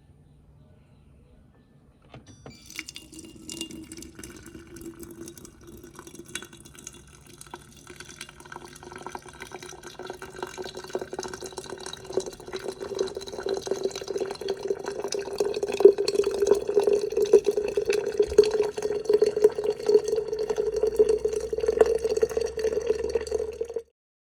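Liquid poured in a steady stream into a container, the ringing tone of the filling vessel slowly rising in pitch as it fills and growing louder, then cutting off suddenly near the end.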